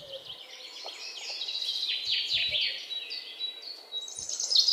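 Birds chirping and twittering, with a quick run of short falling chirps in the middle.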